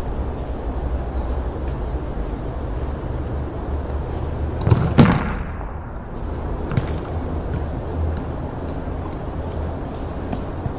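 A hard-pumped football struck with full force and slamming into a concrete wall: two sharp, loud bangs a fraction of a second apart about five seconds in, with a short ring after them, then a few lighter knocks of the ball bouncing. A steady low rumble runs underneath.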